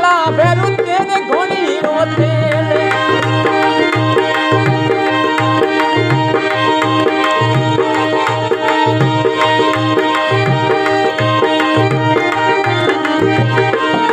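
Instrumental interlude of a Rajasthani devotional folk song: a hand-drum beat under a steady held melody line, with the singer's voice only briefly at the very start.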